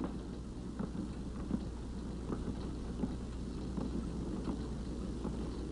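Faint steady low hum with light crackle and scattered small clicks, the background noise of an old film soundtrack.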